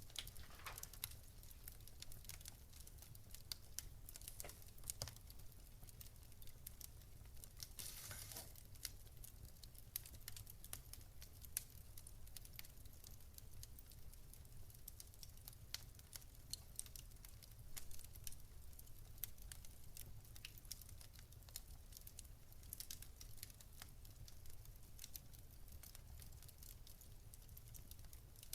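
Wood fire crackling faintly: irregular small pops and snaps over a low steady rumble, with a brief louder burst about eight seconds in.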